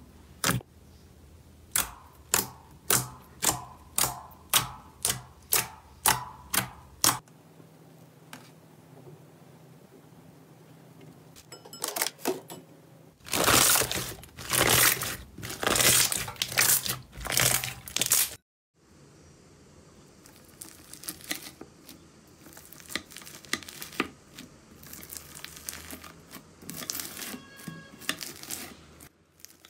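Slime being played with by hand. It opens with a run of sharp pops about two a second as fingers press air pockets in glossy slime. After a few quiet seconds there is loud crinkly crackling, and after a sudden cut, softer scattered crackling.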